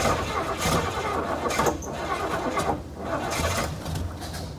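The 1971 Buick GS's V8 being cranked over by its starter in three bursts with short pauses between them, as it is coaxed to fire after decades sitting; it does not settle into an idle.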